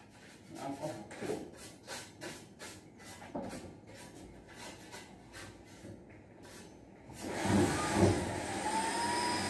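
Faint, even ticking about three times a second; then, about seven seconds in, a handheld corded power drill starts driving into a board ceiling, its motor whine rising and then running steadily.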